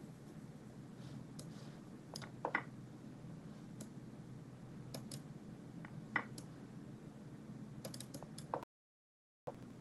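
Scattered computer mouse clicks over a low steady hum, with two louder clicks as chess moves are made, about two and a half and six seconds in. The sound cuts out completely for almost a second near the end.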